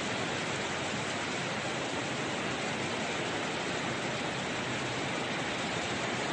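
Steady rush of floodwater from a swollen river, an even continuous noise with no breaks or separate events.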